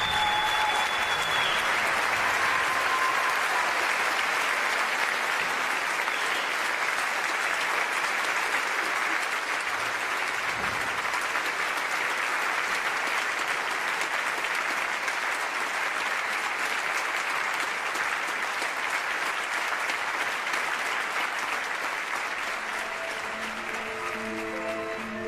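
Concert audience applauding steadily, the clapping thinning slightly toward the end. A last held note dies away just at the start, and instruments begin playing the next piece near the end.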